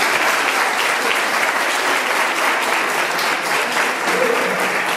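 Audience of seated children applauding steadily, many hands clapping at once.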